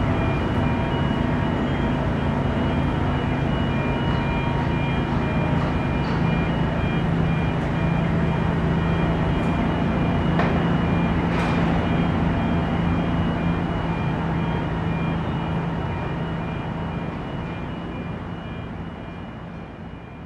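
City street ambience: steady traffic noise under a low engine hum, with faint on-and-off high-pitched tones and a couple of brief clicks about halfway through. It fades out gradually over the last several seconds.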